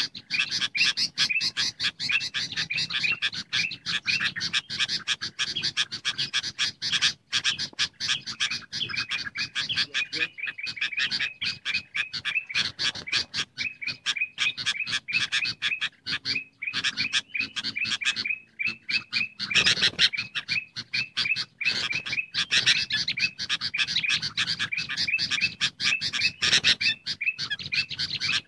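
Bird-lure recording of sooty-headed bulbuls (kutilang) in noisy, excited calling, mixed with calls of the kutilang emas bulbul: a dense, unbroken chatter of rapid high chirps, many a second, with brief pauses now and then.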